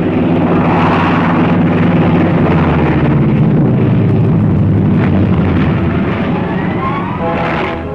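Engine noise of a World War II piston-engine fighter plane: a loud, steady drone with rumbling noise, and tones rising in pitch near the end as the plane passes or dives.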